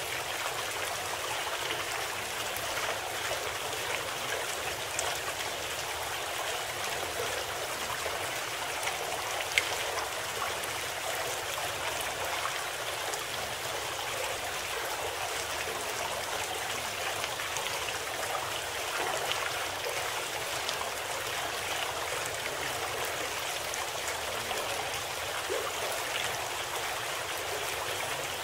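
Steady sound of running water like a babbling stream, with faint droplet ticks and one sharp click about ten seconds in. It is the constant nature-sound bed of a subliminal audio program.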